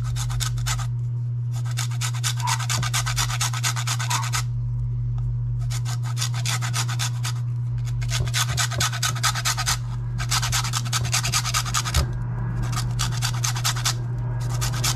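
A lime's peel being zested on a flat stainless-steel grater: runs of quick rasping strokes with short pauses between, over a steady low hum.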